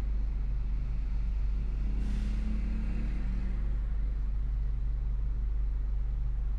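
Car driving: steady low engine and road rumble, with a brief swell of tyre hiss and engine tone about two seconds in.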